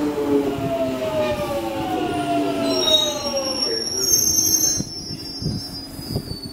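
Jubilee line 1996-stock Underground train slowing alongside the platform, its electric traction whine falling steadily in pitch. A high brake squeal joins about three seconds in, and the sound drops to a steady lower hum about five seconds in as the train comes to a stand.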